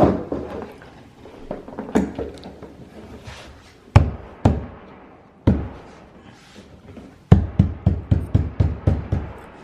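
Hammering: single knocks a second or two apart, then a quick run of about eight blows near the end, about four a second.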